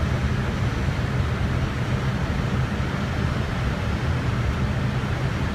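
Airbus A320 on final approach: steady rushing airflow and engine noise with a constant low hum, unchanging throughout.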